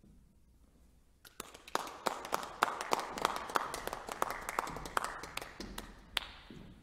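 A small audience applauding, starting about a second in with many distinct individual claps, then thinning out near the end.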